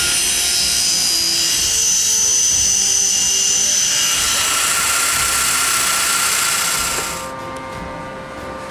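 Combination woodworking machine cutting through wood: a loud, steady high hiss with a faint whine, which cuts off about seven seconds in, leaving quieter background music.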